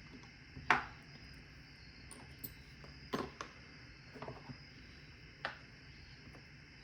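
Light, sharp clicks and taps of small padlock parts and tools being handled while a Paclock 90A-Pro is taken apart: about six short clicks spread over several seconds, the loudest a little under a second in.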